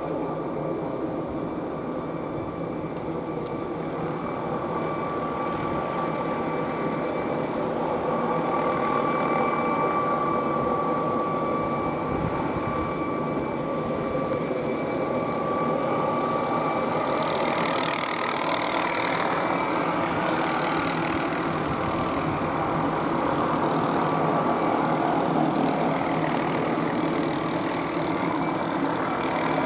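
MD 520N NOTAR helicopter running overhead: a steady turbine whine over rotor and fan noise. A little past halfway the whine fades into a broader, slightly louder rushing noise.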